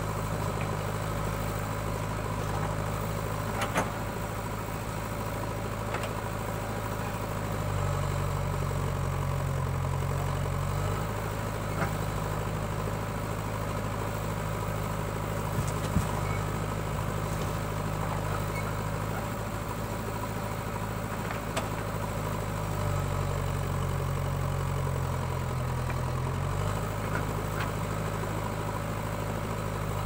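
Backhoe loader's diesel engine running steadily, its note rising twice for a few seconds as it works the hydraulic digging arm. A few short, sharp knocks come from the bucket and the soil landing in a metal tractor trolley.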